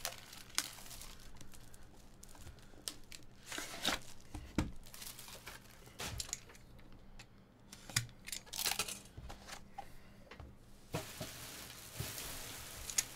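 Plastic shrink wrap being torn and crinkled off a sealed trading card box, mixed with scattered clicks and taps of the cardboard box being opened and handled, and a longer rustle near the end.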